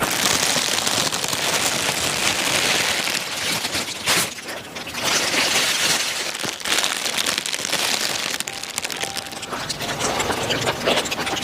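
Close, continuous rustling and crackling noise, with sharper crackles in the last few seconds.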